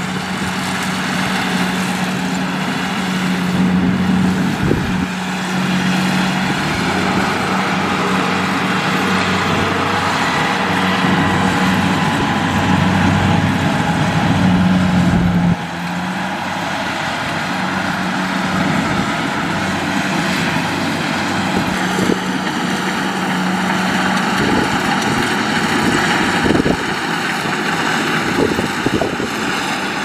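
Kubota DC-70 Plus rice combine harvester running steadily as it cuts and threshes rice, a loud diesel engine drone with a hiss of the working machinery above it. The sound shifts suddenly about halfway through.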